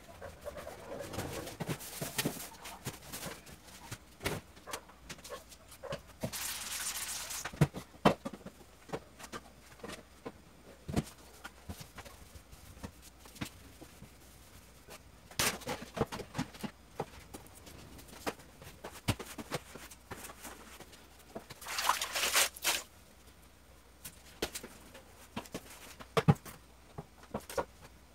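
Household cleaning noises: scattered knocks, clicks and bumps of objects being handled and moved. Two brief swishing, scrubbing sounds come about seven seconds in and again a little past twenty seconds.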